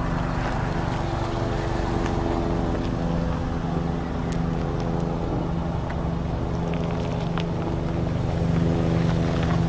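A car's engine running at a steady speed, giving an even low drone with a few faint ticks over it.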